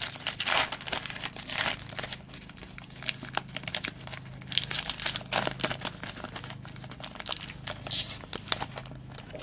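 Plastic wrapping on a pack of trading cards crinkling and tearing as it is opened by hand, in irregular crackly bursts. A faint steady low hum runs underneath.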